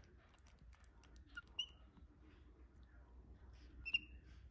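Capuchin monkey giving three short, high squeaky peeps: two close together around a second and a half in, and a louder one near the end. Faint soft clicks and rustling come in between.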